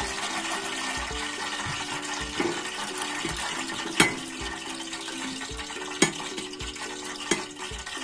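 Wire frying basket of freshly fried dried peppers knocking against a ceramic serving plate: a sharp clink about halfway through and lighter ones two and three seconds later, over a steady hiss of hot oil.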